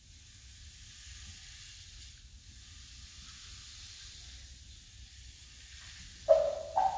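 Faint steady hiss of a quiet concert hall while the band waits to play. About six seconds in, a school concert band comes in loudly with short, sharply attacked pitched notes.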